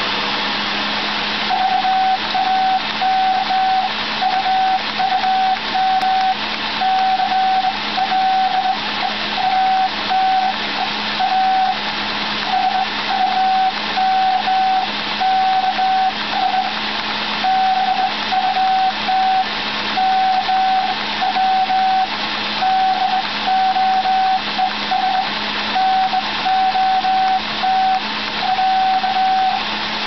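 A vacuum cleaner runs steadily, driving a homebrew semi-automatic Morse key. From about a second and a half in, the key sends code: a steady tone keyed on and off in short dots and longer dashes over the vacuum noise.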